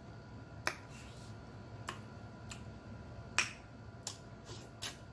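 Wet mouth smacks and clicks of someone eating and chewing close to the microphone: about six short, sharp clicks, the loudest about three and a half seconds in.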